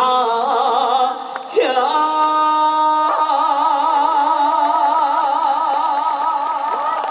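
An unaccompanied male voice sings the long final held note of a trot song. A short break about one and a half seconds in leads to a new note, held first steady and then with wide vibrato.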